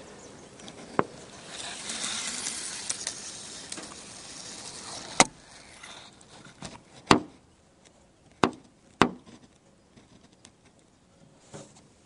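Handling noise on the camera: a knock about a second in, a rush of noise for a couple of seconds, then four sharp knocks between about five and nine seconds in.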